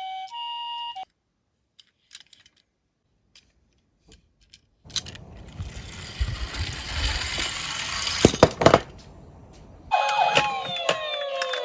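A toy ambulance's electronic two-tone hi-lo siren alternates for about a second and stops. After a nearly silent pause with a few faint clicks, plastic toy cars roll down a slope with a rattling rumble and two sharp knocks. Near the end several toy sirens start at once, their wails rising and falling over one another.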